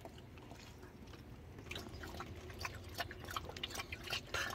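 Wet smacking and lapping sounds of a mother dog licking her newborn puppies while they suckle at her belly. Small quick clicks that grow thicker and louder from about two seconds in.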